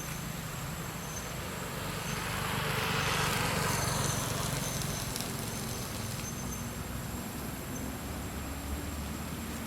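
A road vehicle passing by: its noise swells to a peak about three to four seconds in, then fades away over a steady low rumble.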